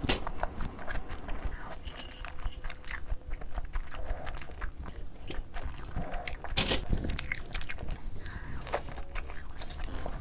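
Close-up eating sounds: a mouthful of noodles being slurped and chewed, with many wet mouth clicks and smacks. Two louder sharp clicks stand out, one at the very start and one about six and a half seconds in.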